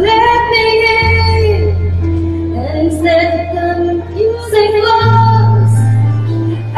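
Pop song playing: a woman sings long held notes over sustained bass notes that shift about a second in and again about five seconds in.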